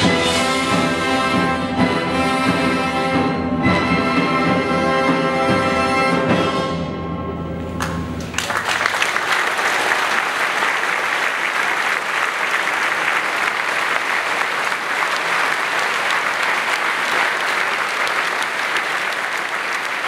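A symphony orchestra, strings and brass, plays sustained notes that end about eight seconds in. An audience then breaks into steady applause.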